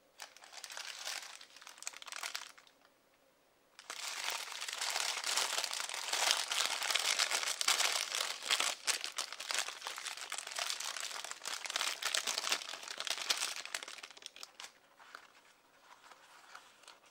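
McDonald's paper burger wrapper crinkling as it is unfolded from around a burger. There is a short burst at first and a brief pause about three seconds in, then continuous crinkling for about ten seconds that fades near the end.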